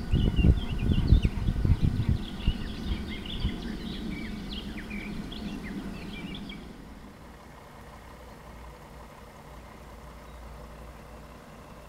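Outdoor ambience of small birds chirping over irregular low rumbling buffets on the microphone. About seven seconds in this gives way to a quieter, steady low hum.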